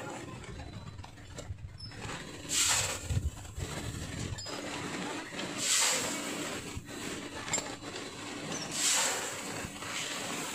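Semi-automatic volumetric cup filler running, with a short rushing burst about every three seconds as each cup's dose of granules is discharged, three times, over a steady low hum.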